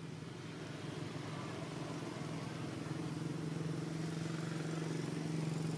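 Steady engine hum that grows gradually louder.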